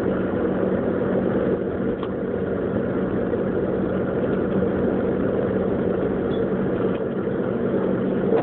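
Jeep Grand Cherokee's engine running with a steady hum under an even rush of vehicle noise, heard from inside the cabin.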